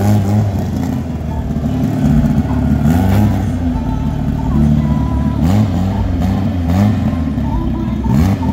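Drag-race VW Gol's engine idling roughly, blipped several times so the revs rise and fall briefly while it waits to stage at the start line.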